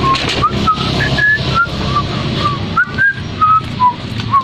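A person whistling a tune in short notes that slide up and down, about three a second, over the clatter of plastic toy vehicles being handled.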